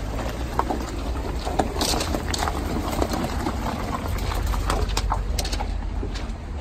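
Footsteps crunching on gravel, an irregular run of short crunches over a steady low rumble.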